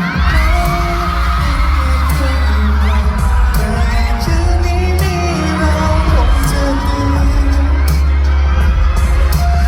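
Live pop song over a concert sound system: a male singer over a loud, heavy bass beat.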